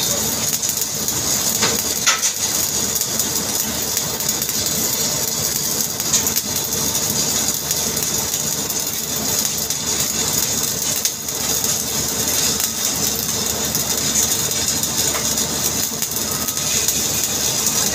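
Stick (shielded metal arc) welding arc burning overhead in the 4G position: a steady frying crackle and hiss, with an occasional louder pop.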